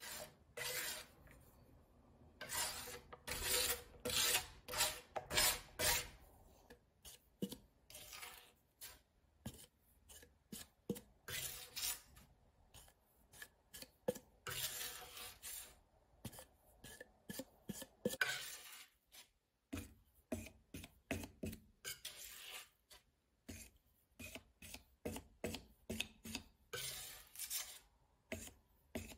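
Metal palette knife scraping thick watercolor paint off its blade against the rim of a plastic bottle, in many short, irregular strokes with a few longer scrapes.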